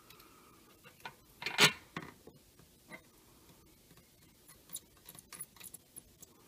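Small, scattered clicks and taps of a soldering iron and desoldering braid working solder pads on a circuit board, with one louder knock about one and a half seconds in and a run of light ticks near the end.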